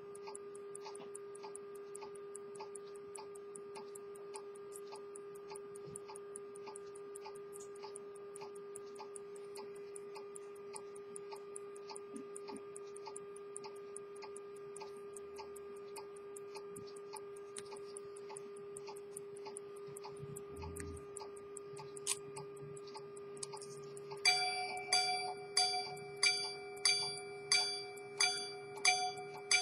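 Swiss quarter-repeater pocket watch movement ticking steadily and rapidly. Near the end the repeat mechanism is set off with a click, and the repeater begins striking its gong: evenly spaced ringing strikes about two a second, much louder than the ticking.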